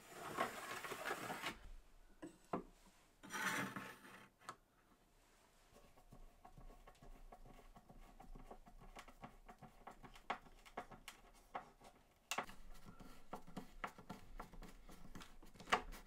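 A pencil scratching along a steel rule on an OSB drawer front, then a hand screwdriver turning small screws through a brass cup handle into the OSB. The screws give a run of small, irregular clicks and creaks that grows busier in the last few seconds.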